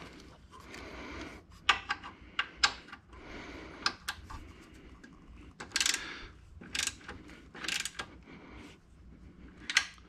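A ratchet wrench clicking in short strokes on the bolts of a motorcycle belt tensioner bracket, with sharp metallic clinks and taps of tools against the bracket.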